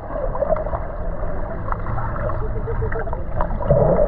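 Muffled pool water heard from a camera held underwater: a low, steady rumble and gurgling with small clicks and bubbles, and no clear high sounds.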